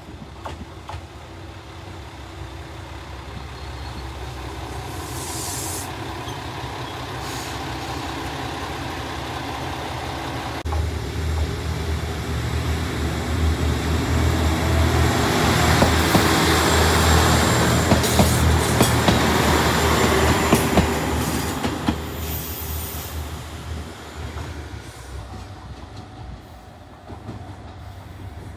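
JR Shikoku 2000 series diesel train running past: its engine rumble builds and is loudest for several seconds in the middle, with clicks of the wheels over rail joints, then fades away.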